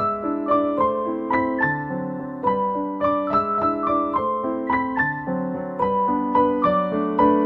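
Background piano music: a calm melody of single notes and chords, a few notes a second, each ringing and fading.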